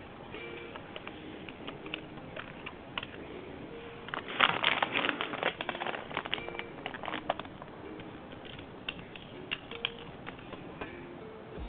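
Small clicks and rustling from PC parts and packaging being handled, densest about four to six seconds in, over faint background music.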